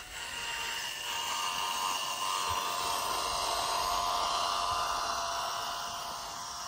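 Small electric drive motor and gearbox of a remote-controlled scale-model Massey Ferguson 385 tractor whining steadily under load as it pulls a tined cultivator through sand, growing louder over the first couple of seconds.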